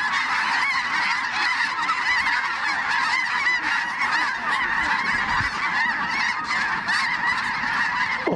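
A huge flock of snow geese calling as it circles low and lands: a dense, continuous din of countless overlapping high-pitched honks.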